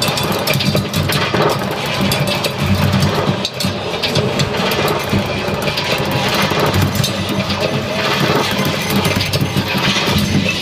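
Harsh free-improvised noise music: a drum kit played in a rapid, clattering flurry of hits over a loud, dense rumbling wall of electronic noise.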